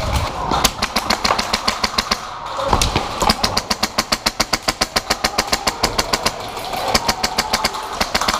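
Airsoft guns firing on full auto: a rapid, even rattle of shots, many a second, in long strings.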